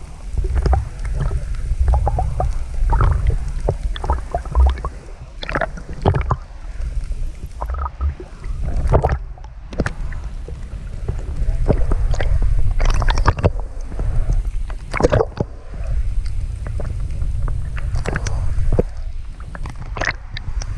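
Water rumbling and gurgling against an underwater camera's housing just below the surface: a heavy low rumble with frequent irregular knocks and crackles.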